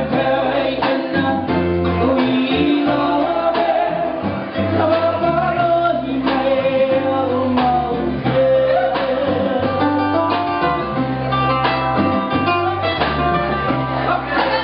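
Live band playing a song with singing over ukulele, bass guitar, drum kit and congas, with a steady drum beat.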